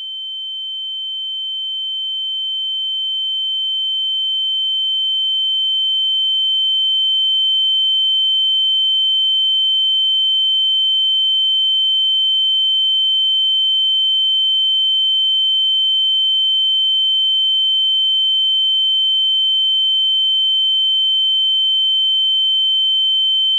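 Ear-ringing (tinnitus) sound effect: a single high, steady pure tone that swells in over the first several seconds, then holds level.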